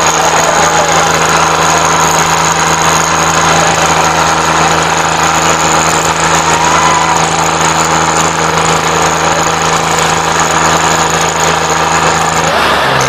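Tractor diesel engine running flat out under heavy load, a loud steady drone with a rapid rattle of firing pulses, as the tractor strains with its rear wheels spinning.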